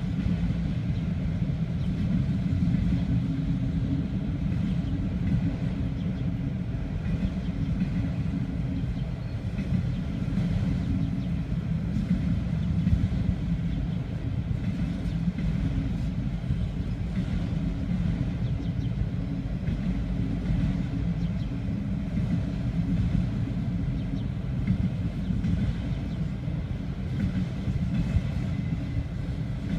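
CSX autorack freight train rolling past with a steady low rumble, faint wheel clicks scattered through it.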